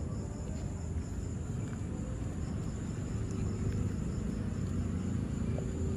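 Crickets chirring steadily as one constant high tone, over a steady low outdoor rumble.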